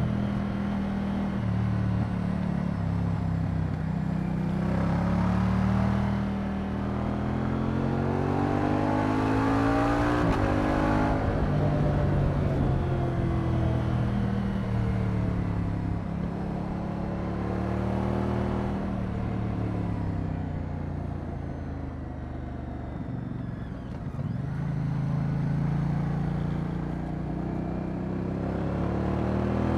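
Moto Guzzi V100 Mandello's transverse V-twin engine under way on the road. Its note climbs with the revs, drops sharply about ten seconds in, then rises and falls again as the rider accelerates and eases off.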